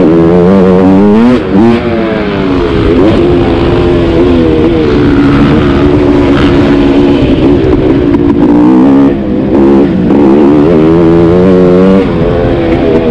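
KTM 300 XC's single-cylinder two-stroke engine revving up and down under hard throttle as the dirt bike is ridden around the track. The throttle briefly shuts off about a second and a half in, and again around nine to ten seconds in.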